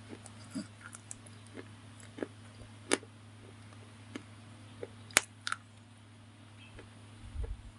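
A white slate bar being bitten and chewed close to the microphone: scattered sharp crunchy cracks, the loudest about three and five seconds in, over a steady low hum, with a low rumbling near the end.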